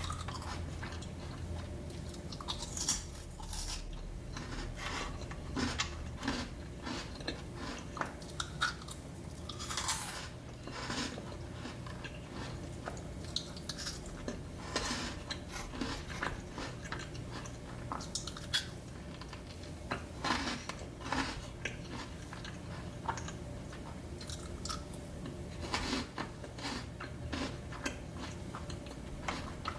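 Close-miked eating of desserts: steady, irregular chewing with crunchy bites and mouth sounds.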